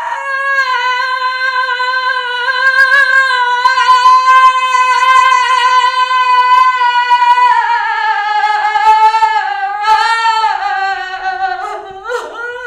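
A woman's voice making a long, high mewling noise like a cat. It holds one steady note for about seven seconds, then wavers and sinks lower, breaking up near the end.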